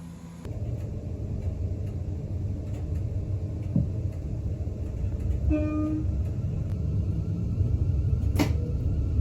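Low, steady rumble of a train, with one short horn note about five and a half seconds in and a sharp click near the end.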